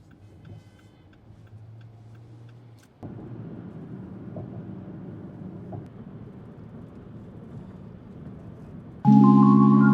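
Faint background hum with a regular light ticking for about three seconds, then an abrupt cut to a louder, steady low rumble of ambient noise. Mallet-style music starts near the end.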